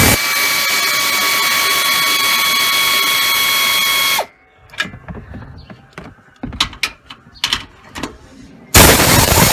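A power wrench runs for about four seconds on the 14 mm top bolts of a shock strut, a loud rattling run with a steady whine, then stops. A few short metallic clicks and knocks follow, and the tool starts up again near the end.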